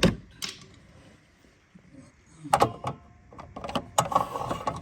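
Plastic cover near a car's hood latch being wiggled loose by hand: a sharp click at the start, then a cluster of plastic clicks and knocks about two and a half seconds in, and more clicking and scraping near the end.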